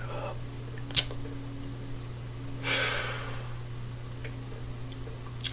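A pause in a man's talk: a steady low hum in the room, a sharp click about a second in, and a breath drawn around the middle.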